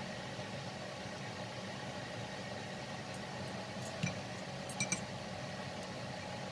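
Steady low machine-like hum, with a few light clicks about four seconds in and again near five seconds.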